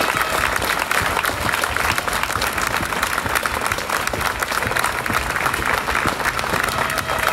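Large crowd applauding: many people clapping at once in a dense, sustained patter.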